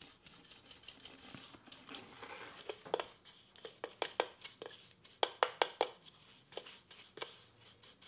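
Fine coffee grounds being scraped and brushed out of a Bodum Bistro blade grinder's container with a small tool: soft rustling scrapes, then a run of sharp ticks and taps from about three seconds in until about seven.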